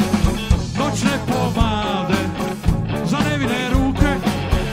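Live rock song: vocals over guitar, bass and drums with a steady beat.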